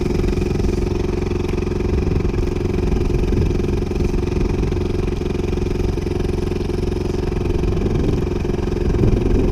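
Dinghy's outboard motor running steadily at a low, even speed.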